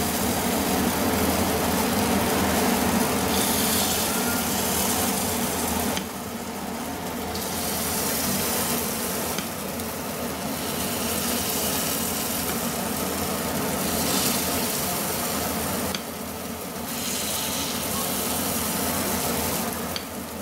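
Dosa batter sizzling in the hot, oiled cups of a non-stick paniyaram pan on a gas flame as spoonfuls are poured in. The hiss drops sharply three times for about a second.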